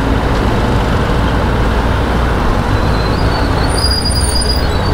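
Kawasaki ZX-10R's inline-four engine running steadily at low speed in slow city traffic, mixed with road and traffic noise.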